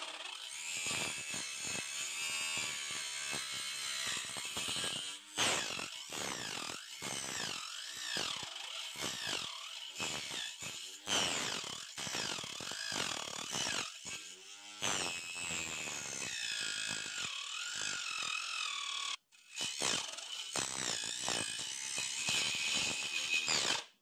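Homemade circular saw driven by a 775 DC motor, running with a high whine whose pitch keeps dipping and recovering as the blade cuts into a wooden board. The sound breaks off abruptly once, about 19 seconds in, and starts again.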